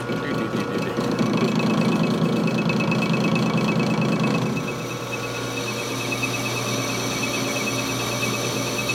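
Metal lathe running and taking a cut on a steel part, the cut heard as a heavier, louder sound from about a second in until just past the middle, over a steady fast ticking from the running machine.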